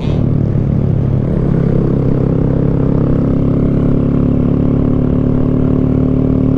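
Honda Grom's 125 cc single-cylinder four-stroke engine running steadily under way, its pitch creeping slowly upward in the second half.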